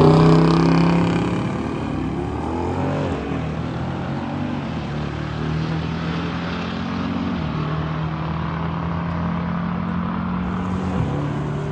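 The nitrous-fed Jeep's engine at full throttle on a drag-strip pass. It is loudest right at the start, then settles into a steady drone that drops in pitch a couple of times.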